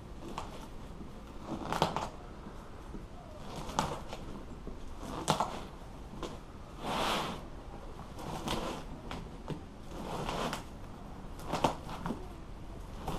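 Staples being twisted and pulled out of a boat seat's vinyl and wooden base with pliers: a series of short clicks and scrapes every second or two, with the vinyl rustling.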